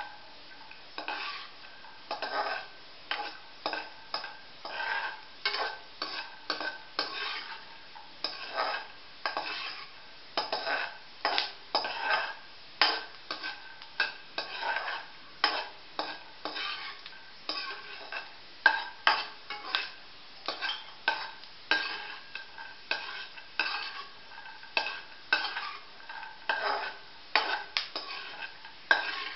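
Perforated steel ladle scraping around a metal kadhai, about one to two strokes a second, stirring peanuts as they fry in shallow oil on a low flame, with a light sizzle underneath.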